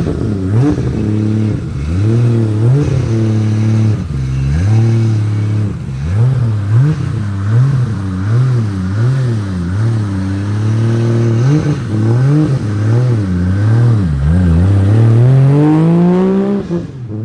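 Car engine being revved while stationary: idling, blipped up and down many times in quick succession, then held in one longer rising rev near the end that cuts off suddenly.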